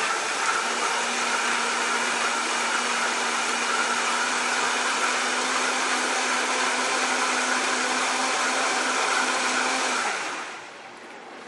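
High-powered countertop blender running steadily as it purees cooked asparagus in broth into soup, with a tamper in the jar. The motor slows and stops about ten seconds in.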